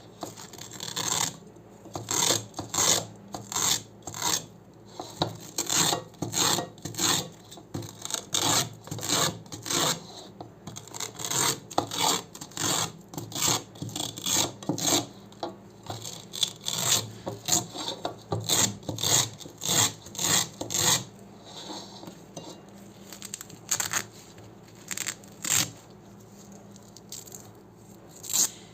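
Hook-and-loop (Velcro) fastener making short, crunchy rasping strokes, one or two a second, thinning out to a few spaced strokes after about twenty seconds.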